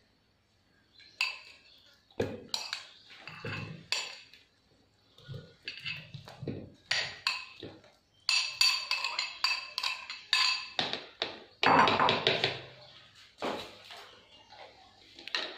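Kitchen clatter: a metal spoon clinking and scraping against a glass bowl and a plastic blender jug as mango pieces are scooped in, with the bowl set down on the counter and the jug handled. It comes in scattered knocks and clinks, busiest about eight to eleven seconds in; the blender is not running.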